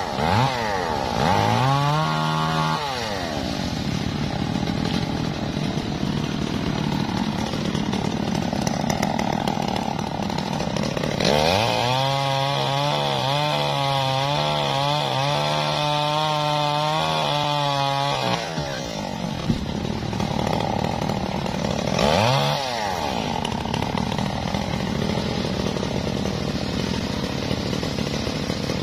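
Stihl MS381 two-stroke chainsaw running, revved up briefly a couple of seconds in, then held at full throttle for about seven seconds while cutting through a felled tree trunk, its pitch wavering under the load. It drops back to a lower, steady run, with one more quick rev a few seconds later.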